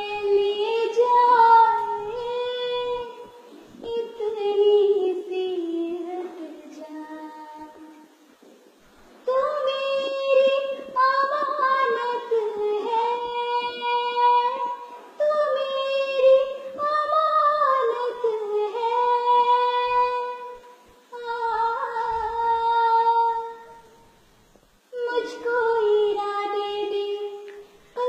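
A young girl singing a song unaccompanied, in long held melodic phrases, with a pause about a third of the way in and another near the end.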